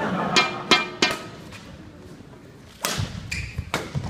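Badminton rally: sharp cracks of rackets striking the shuttlecock, three in quick succession in the first second, then after a pause more hits mixed with heavy thuds of players' feet landing on the court.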